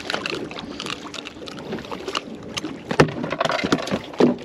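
Irregular clicks and knocks of handling aboard a small fishing boat, over a steady hiss, with one sharp knock about three seconds in.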